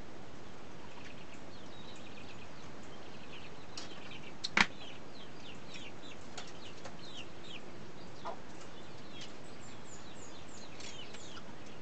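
Birds chirping over and over in short, high calls that drop in pitch, with one sharp click about four and a half seconds in.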